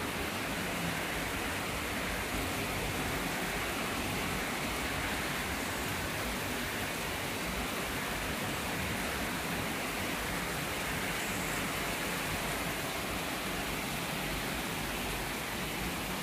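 Steady, even hiss of heavy typhoon rain falling outside.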